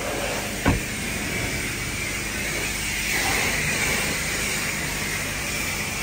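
Water spraying onto a car during a wash: a steady hiss over a low hum. There is one sharp knock just under a second in.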